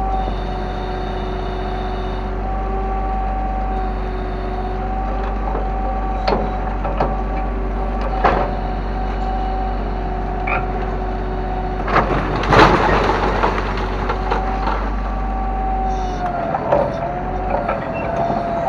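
Kobelco excavator running steadily with a wavering whine over a low engine hum, with a few sharp knocks and a loud crash of debris about twelve seconds in.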